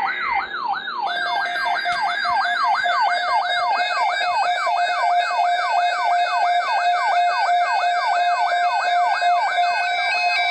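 Electronic alert siren rapidly sweeping up and down in pitch, about five times a second, over a steady lower tone, with stepped chime tones coming in near the end. It marks the start of a new severe weather alert, here a severe thunderstorm watch.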